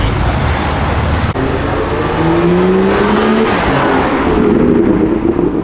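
A loud car engine accelerating, its pitch rising in two runs, over a rushing background of traffic.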